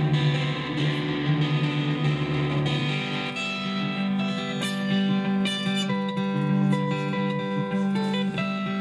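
Fender Nashville Telecaster played through a Fender Blues Deluxe amp in a solo instrumental math-rock piece. A thick, noisy-sounding passage gives way about three seconds in to clean, ringing single notes over a sustained low note.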